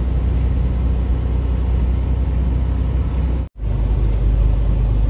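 Steady low rumble of a semi-truck's engine and tyres on a snow-covered highway, heard inside the cab. The sound cuts out for an instant about three and a half seconds in, then carries on.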